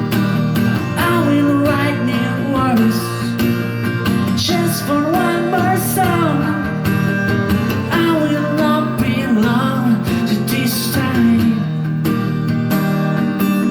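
Live song with strummed acoustic guitar holding steady chords, and a melody line sliding up and down over it.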